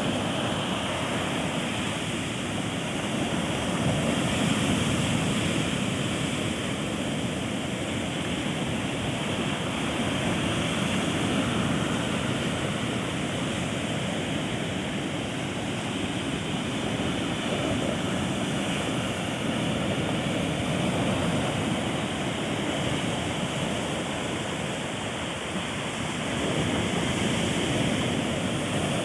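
Ocean surf washing onto a beach: a continuous rushing wash whose loudness swells and eases every several seconds as waves come in.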